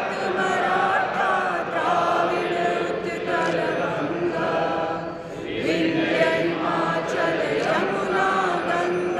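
A group of people singing a slow song together in unison, with long held notes.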